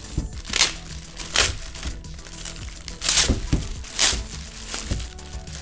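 Plastic packaging crinkling and rustling in about five loud bursts as a travel mug is unwrapped, over steady background music.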